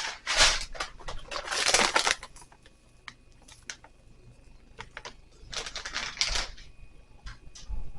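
Rustling and crinkling of packaging as items are handled and unpacked, in three loud bursts with scattered light clicks and taps in between.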